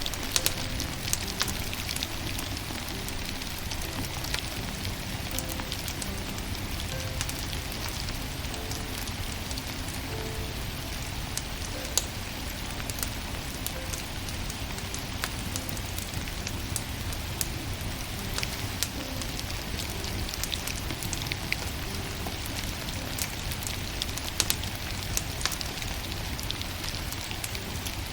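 Burning firewood crackling, with many sharp pops and snaps over a steady hiss. Faint soft music notes sound underneath.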